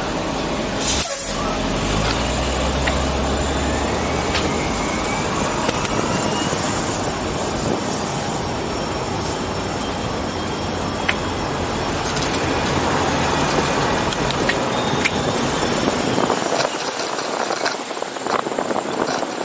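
City street traffic beside a bus: a diesel bus engine's low drone and road noise, with a short hiss of air brakes about a second in.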